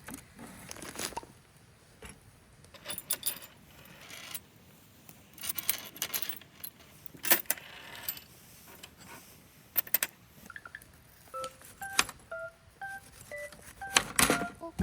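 Irregular sharp knocks and clicks of a knife cutting a frozen onion on a board, with small metallic clinks. Short beeping tones at different pitches come in near the end.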